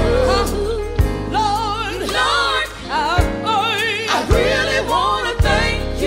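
Recorded gospel song: singing with wavering, vibrato-laden notes over a band, with a low drum beat about once a second.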